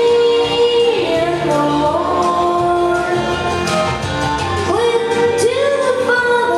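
A boy singing a country song into a microphone over instrumental accompaniment, drawing out long held notes.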